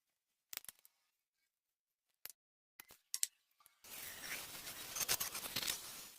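Small workbench handling sounds on a toy car: a few light clicks and snips, then from just over halfway a steady rough scraping noise that carries on to the end.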